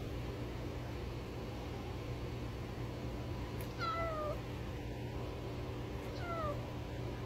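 Orange tabby kitten meowing twice, short calls that fall in pitch, about four seconds in and again about two seconds later.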